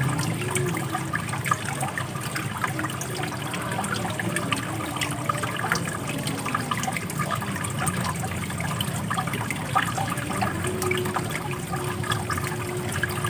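Water running steadily, with many small splashes and gurgles throughout.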